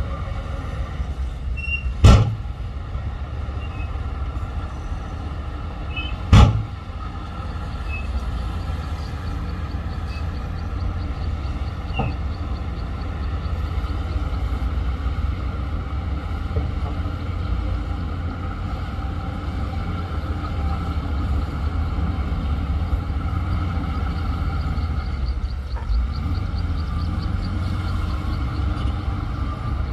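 Heavy diesel earthmoving machinery running steadily with a deep engine rumble, broken by two loud sharp metallic bangs, about two seconds and six seconds in.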